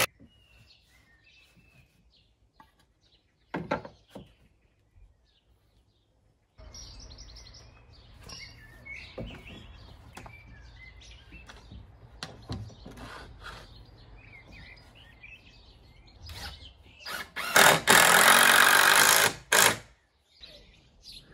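Cordless drill driving screws into timber posts: a short burst about three and a half seconds in, then a longer, loud run of about two and a half seconds near the end. Birds chirp in the background.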